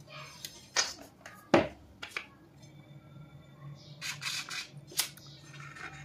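Knocks and light scrapes of cake-decorating tools being handled on and around a metal cake turntable while cream icing is smoothed, with one sharp knock about a second and a half in and a brief scraping patch near the end.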